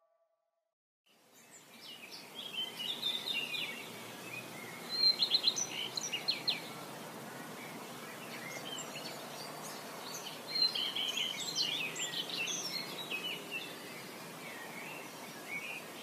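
Outdoor ambience with a steady background hiss and birds chirping in short, scattered bursts. The sound begins about a second in, after a moment of silence.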